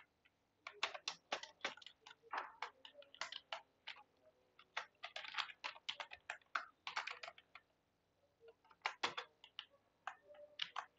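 Computer keyboard typing: quick clusters of keystroke clicks, with a pause of about a second shortly before the end.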